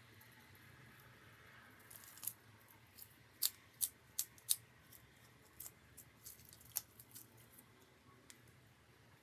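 Irregular series of light, sharp clicks and snips of hand work on small parts, loudest in a quick run of four about three and a half to four and a half seconds in.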